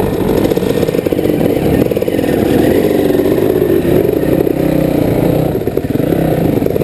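Dirt bike engines running close by, their pitch wavering up and down as the riders work the throttles and move off.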